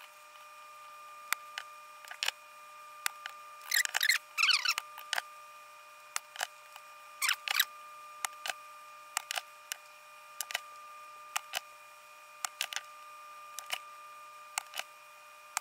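Spring-loaded desoldering pump (solder sucker) clicking as it is cocked and fired on solder joints of a keyboard circuit board while key switch contacts are desoldered: sharp single clicks every second or so, with two longer scraping rattles about four and seven seconds in. A faint steady high whine runs underneath.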